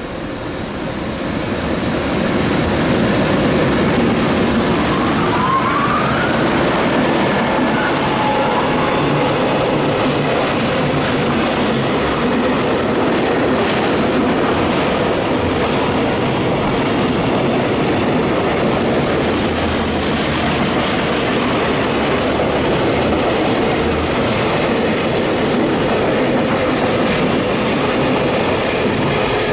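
JR Freight container train, an EH500 electric locomotive hauling Koki container flatcars, rolling past with a steady clatter of wheels on rail. It grows louder over the first two seconds as the train draws level. A brief rising tone comes about six seconds in.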